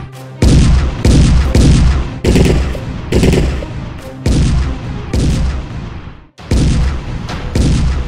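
Gunfire and cannon-blast sound effects: a string of loud bangs, one to two a second, each trailing off in a low booming rumble, with a brief break just after six seconds.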